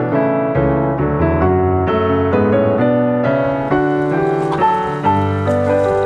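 Background piano music: single notes struck one after another in a steady, flowing line. About halfway through, a faint crackling hiss joins underneath.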